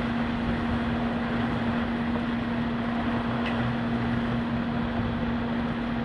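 Storm wind and torrential rain making a steady rushing noise, with a steady low hum running under it.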